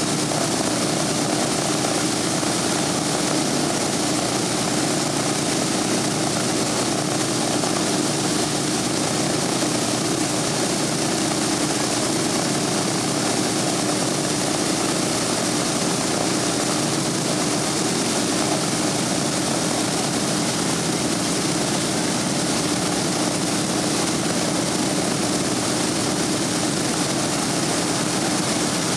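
Boeing B-17 Flying Fortress's Wright R-1820 Cyclone radial engines running steadily on the ground, propellers turning, with a constant drone that neither rises nor falls.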